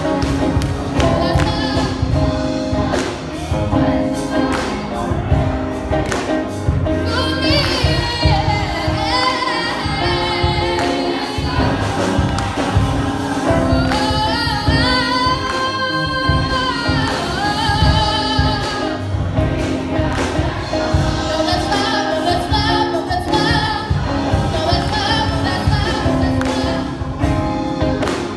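Gospel choir singing with a band accompaniment, over a steady beat of drums and bass.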